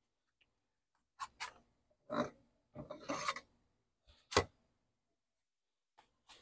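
Dry wood chips scraping and rustling as they are loaded into the wood-chip loader of a Masterbuilt electric smoker, in several short bursts, with a sharp clack a little over four seconds in.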